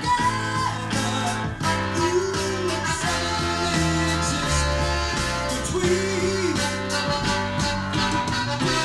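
A song with a singing voice over instrumental accompaniment, played back from a vinyl EP record that was recorded onto cassette.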